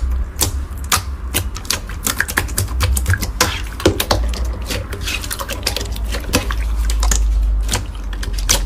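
Slime being squished and pressed by hand, giving rapid, irregular sharp clicks and pops of trapped air, over a low rumble of handling.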